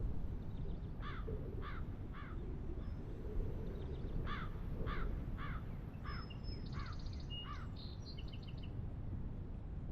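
Crows cawing: three calls, then after a pause a run of about six more, roughly half a second apart. Underneath is a steady low rumble, and a few short high bird chirps come near the end.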